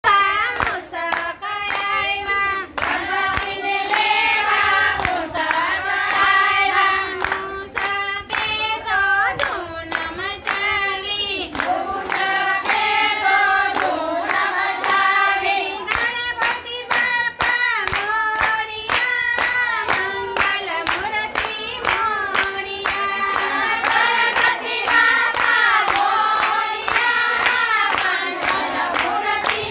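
A group of women singing a devotional song together while clapping a steady beat with their hands, about two claps a second.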